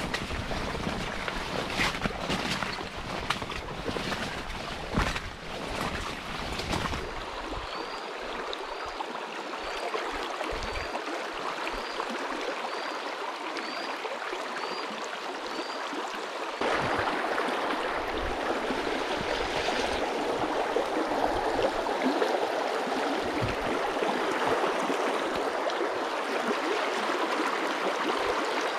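Shallow river water running over stones, growing fuller and louder a little past halfway through.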